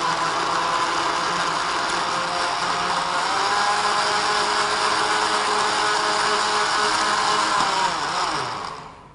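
Electric jug blender running steadily as it purées cooked vegetable soup, its motor pitch rising slightly about three seconds in, then switched off near the end with the motor winding down.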